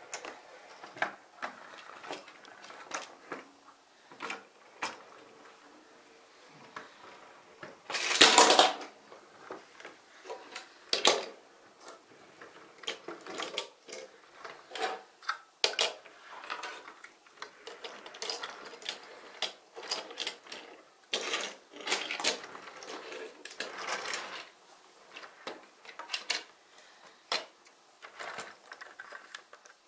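Plastic building-brick toy truck transporter and small brick cars being handled on a wooden table: scattered clicks, knocks and rattles of plastic parts, with one louder clatter about eight seconds in.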